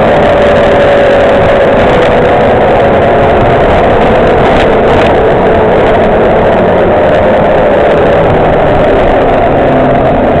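MCW Metrobus Mk2 bus running, heard from inside the passenger saloon: a steady engine and drivetrain rumble with a whine that falls slowly in pitch as the bus slows.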